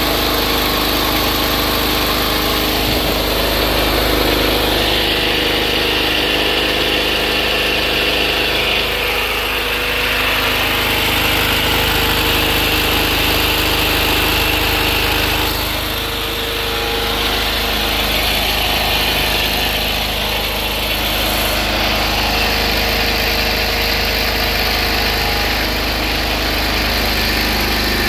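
A high-compression (18.6:1) diesel engine converted to run on woodgas, running steadily under its own power and belt-driving a generator. Its level dips briefly once, a little past the middle.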